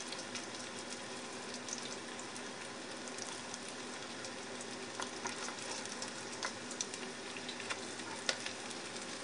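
Panko-breaded pejerrey fillets shallow-frying in hot oil in a disco pan over a high flame: a steady sizzle with scattered crackling pops.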